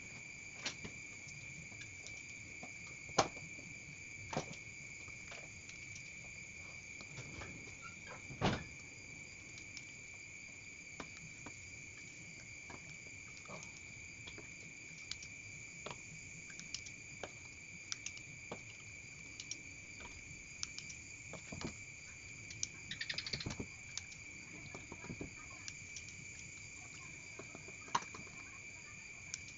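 Steady, high-pitched chirring of crickets, with scattered clicks and taps of chopsticks against a stainless steel bowl as sticky sago paste is twirled into kapurung balls, the loudest tap about eight seconds in.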